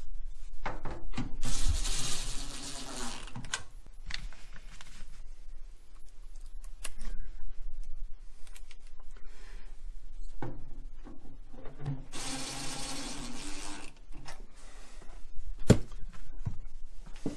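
Cordless drill-driver running in two spurts of about two seconds each, the first about a second in and the second near twelve seconds in, driving the screws that close the cover of a tankless water heater. Scattered clicks and knocks of handling come between the two runs.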